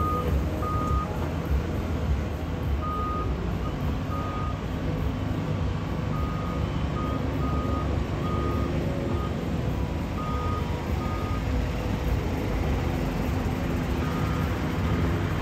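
Crawler excavator's diesel engine running steadily while the machine works, with short high electronic alarm beeps sounding on and off in small irregular groups.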